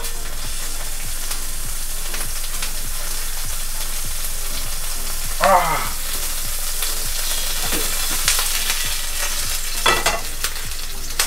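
Raw beef mince sizzling in a hot frying pan, a steady high fizz, with louder bursts about halfway through and near the end as more handfuls go into the pan.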